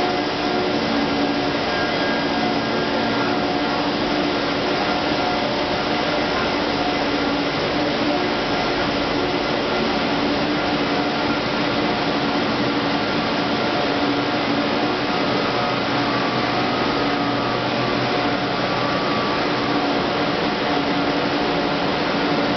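Large-diameter pipe extrusion line running: a steady machinery hum made of several held tones over an even hiss from its motors and pumps.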